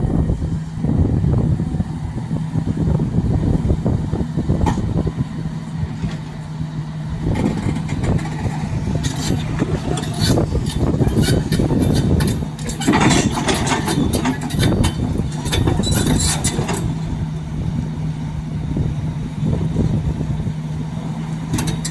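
Excavator's diesel engine running steadily. From about 7 to 17 seconds in, a long run of sharp metallic clanking and rattling sits over it.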